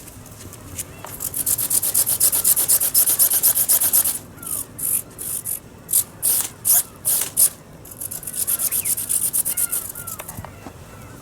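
Servo-driven ornithopter's wings flapping: a fast rasping beat of about ten strokes a second that breaks into short irregular bursts in the middle, then resumes steadily.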